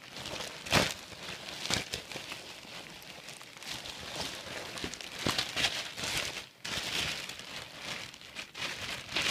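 Packaging crinkling and rustling as a new backpack is unwrapped by hand, with a couple of sharper crackles about one and two seconds in.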